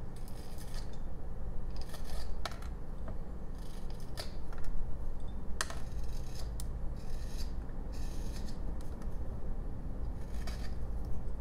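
Whittling knife paring a jelutong wood carving in short separate strokes, each a brief scraping cut about every one to two seconds, with a few sharp clicks, over a steady low hum.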